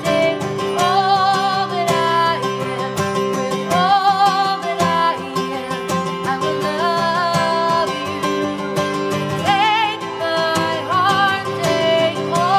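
A woman singing, with vibrato on her held notes, accompanied by a man playing an acoustic guitar.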